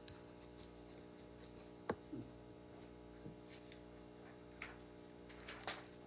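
Quiet room with a steady low electrical hum, broken by a few faint scattered clicks and soft rustles.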